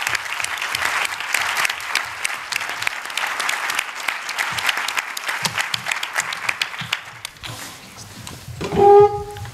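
Audience applauding at the end of a speech, the clapping thinning out about seven seconds in. Near the end comes a brief pitched sound with clear overtones, louder than the clapping.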